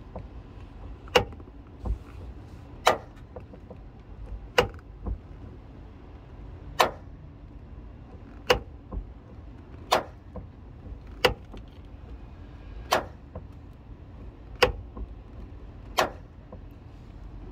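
Peugeot 3008 car door, worked back and forth at the hinge and check strap, giving a sharp click about every one and a half to two seconds, about ten times, sometimes with a smaller click just after. This is the unwanted noise coming from the door.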